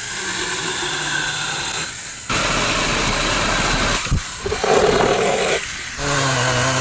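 A battery-powered 24 V mini chainsaw's electric motor whining as it runs, then the louder rasp of its chain cutting through wood. The sound comes in short spliced segments that cut in and out abruptly.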